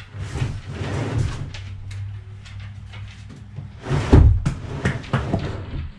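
A large hollow plastic water tank being slid and set down on a plywood floor: scraping and bumping, then a loud heavy thump about four seconds in and a couple of lighter knocks.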